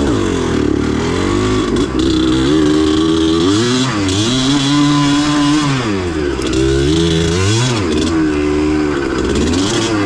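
Yamaha DT180's two-stroke single-cylinder engine being ridden on a dirt track. It revs up and down as the throttle opens and closes, its pitch climbing and falling away several times.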